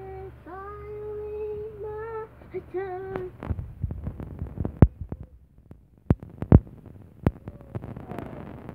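A young girl singing long held notes with small bends in pitch, without clear words. About three seconds in the singing stops and gives way to a run of sharp knocks and clicks, loudest in the middle, with a faint voice returning near the end.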